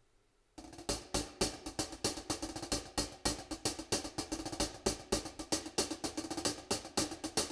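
Jazz drum kit played with sticks: a busy, steady rhythm of drum and cymbal strikes that starts about half a second in, opening a quartet piece, with a few held pitched notes underneath.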